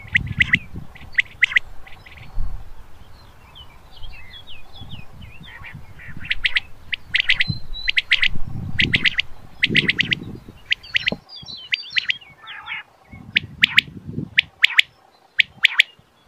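Male common quail singing its 'wet-my-lips' song: quick groups of short, sharp whistled notes, repeated every second or so with short gaps. A low rumble comes and goes underneath.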